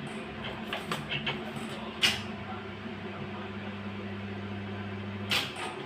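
Cutting machine working: a sharp clunk, then its motor hums steadily for about three seconds and stops with another clunk. A few light clicks come before it.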